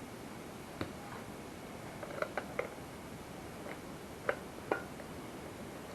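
Scattered light metallic clicks and clinks, about seven in all and spaced irregularly, a few ringing briefly: small engine parts and bolts being handled and fitted by hand.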